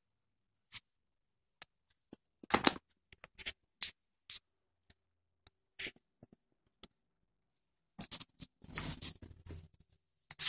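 Scattered soft clicks, scuffs and rustles of movement close to the microphone, with a louder burst of rustling about two and a half seconds in and a longer stretch of rustling near the end.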